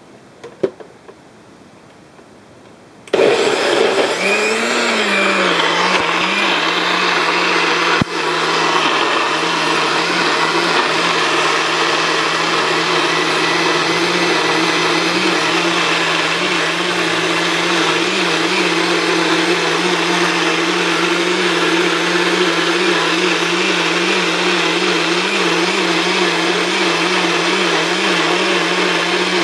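A sharp click under a second in, then about three seconds in the Magic Bullet personal blender's motor starts and runs steadily, blending chopped pineapple and carrot into a smoothie. Its hum sags in pitch just after starting, then holds with a slight waver.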